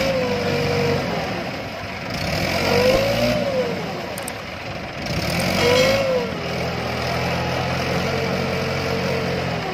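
Diesel tractor engines working hard under load as a Mahindra 575 DI, stuck in mud with its rear wheels spinning, is towed out by a Massey Ferguson 7250 DI. The engines rev up and ease off three times, about three seconds apart, then hold a steady high pull.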